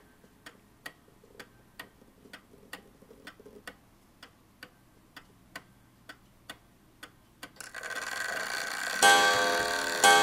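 Ansonia Steel kitchen clock's movement ticking faintly, about two beats a second, then striking the hour near the end: two ringing strokes on its gong about a second apart. The strike train is working properly.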